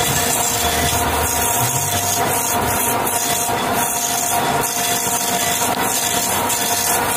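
Metal lathe taking a rough cut on a bronze bushing: the machine running steadily under a continuous cutting hiss as the tool shears bronze chips.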